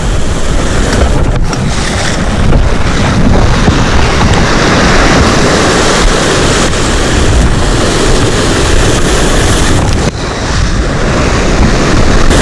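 Loud surf washing on a rocky shore, with strong wind buffeting the microphone; the noise dips briefly about ten seconds in.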